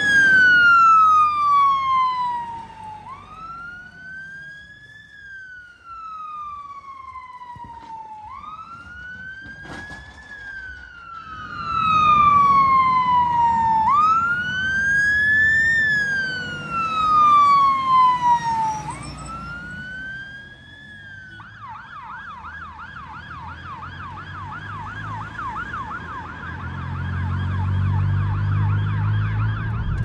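Fire engine's siren on a slow wail, rising and falling about once every five seconds, then switching to a fast yelp about two-thirds of the way through. It swells and fades as the appliance moves off, and a low engine rumble builds near the end.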